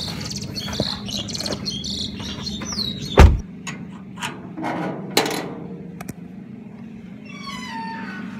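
Metal gate latch being worked by hand: rattles and clicks, one loud clank about three seconds in and a second clank about two seconds later. A short falling squeal comes near the end.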